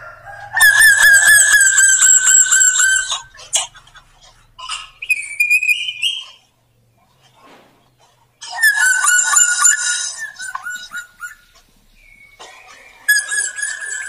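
Drongo singing: three long, loud calls of two to three seconds each with a wavering tone, and a few shorter rising notes between them.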